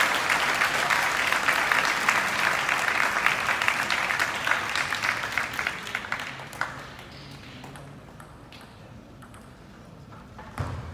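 Audience applause after a table tennis point, dense clapping that fades out about six or seven seconds in, leaving a low hall murmur with a single sharp knock near the end.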